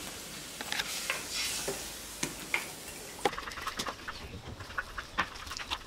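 Wood fire crackling under a pot with a light hiss. About halfway through, a run of small clicks and taps follows as garlic cloves are peeled and broken on a stone grinding slab.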